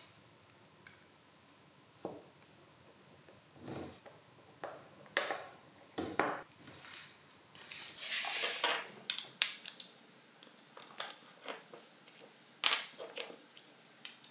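Small steel parts of a cordless screwdriver's chuck (loose ball bearings, thin washers, spindle and steel sleeve) clicking and clinking irregularly as they are handled and set down on a wooden workbench, with a longer scrape about eight seconds in.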